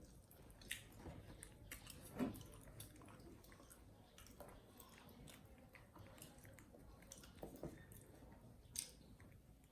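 Faint chewing with scattered small clicks: a monkey eating.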